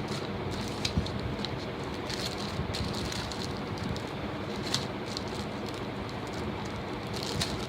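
Guitar-string packaging being handled and opened, plastic crinkling with a few sharp crackles over a steady hiss.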